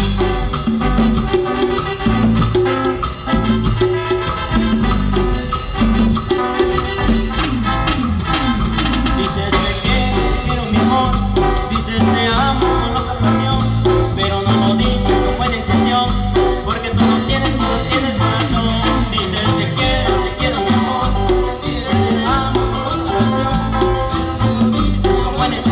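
Live Latin dance band playing, with repeating bass notes under a steady, busy beat and no lead vocal.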